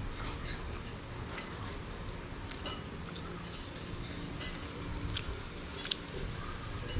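Cutlery clicking and clinking against a plate during a meal, a few scattered light strikes over a steady low hum.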